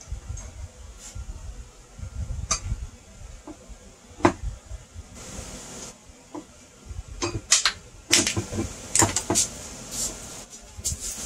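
Handling noise of a Onewheel GT being assembled: scattered sharp metal clicks and knocks, more frequent in the second half, over a low rumble, as the hub-motor wheel assembly is fitted into the rails and the board is turned and set down on the workbench.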